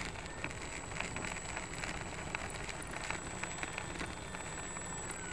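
Dynam Waco electric RC biplane taxiing on rough pavement: a steady rattly rolling noise with many small clicks, and a faint motor whine that drops in pitch near the end as the motor slows.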